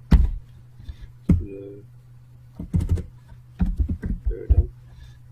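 Computer keyboard keys clicking in irregular bursts as a terminal command is typed, over a faint steady low hum.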